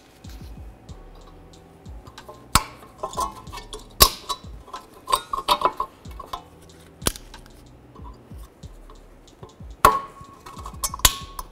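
Irregular metallic clicks and clinks as locking pliers grip and pull the small coil spring on the parking brake shoes, a few of them sharper with a brief metallic ring.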